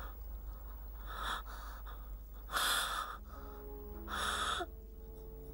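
A dying young woman's breathy gasps, three faint last breaths, the middle one the loudest. Soft sustained music comes in about halfway through.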